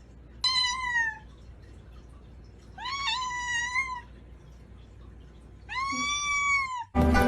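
A cat meowing three times, each meow about a second long: the first falling in pitch, the last arching up and down. Music starts suddenly near the end.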